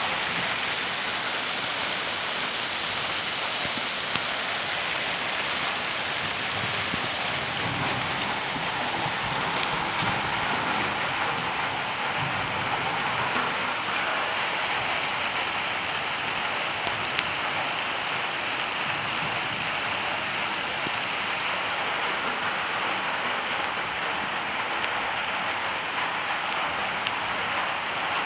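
Steady rain falling on dense trees, an even hiss, with a couple of sharp drip ticks.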